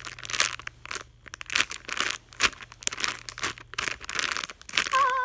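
Plastic packaging crinkling and crackling in quick irregular bursts as a squishy toy inside it is handled and squeezed.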